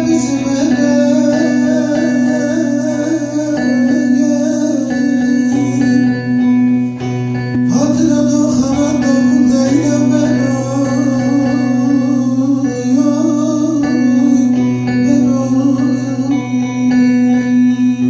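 A man singing a Turkish folk song (türkü) to his own plucked bağlama (saz) accompaniment, the melody wavering over steady low drone notes.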